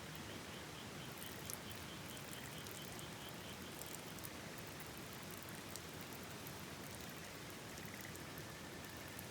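Steady rushing of a river and rain with scattered light ticks, while a frog calls in a quick run of high pulses, about four a second, that stops about four seconds in. A thin, steady high note comes in near the end.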